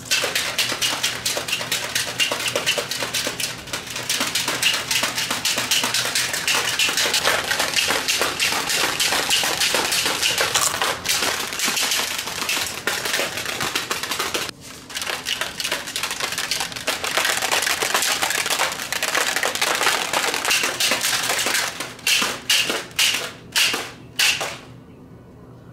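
A handheld object shaken hard and fast, making a dense, continuous rattle. It drops out briefly about halfway through and ends in a few separate shakes before stopping.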